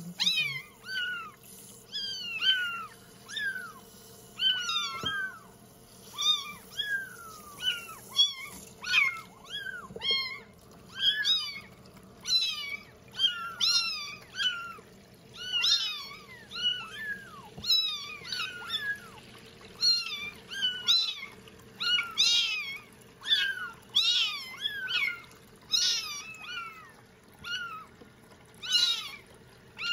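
A litter of young bottle-fed kittens meowing over and over while being bathed, short high cries about one or two a second, some overlapping.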